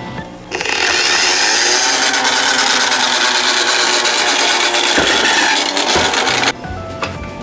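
Toy minicar wheels rolling down a slope: a steady, loud rolling rasp that starts about half a second in and cuts off abruptly near the end.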